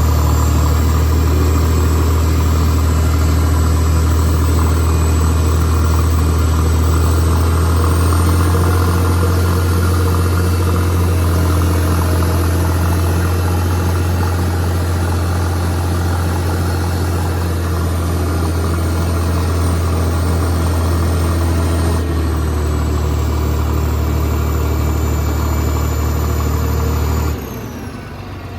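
Caterpillar 977H crawler loader's diesel engine running steadily, with a faint high whine rising and falling above it; near the end the engine note drops off suddenly as the throttle comes back.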